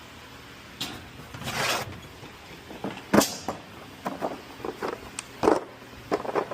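Cooling system pressure tester being fitted to the radiator filler neck: a scattered series of clicks and knocks from handling the tester. There is a short scraping rush about a second and a half in and a sharp knock about three seconds in.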